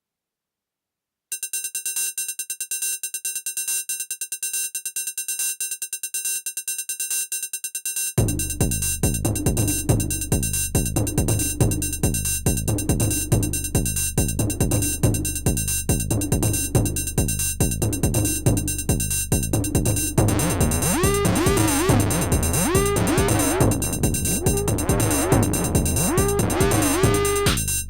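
Electro-house drum machine beat from a Teenage Engineering PO-32 pocket drum synthesizer. Fast high ticking starts about a second in, a heavy kick and bass come in about eight seconds in, and chirping pitched synth sweeps join about two-thirds of the way through.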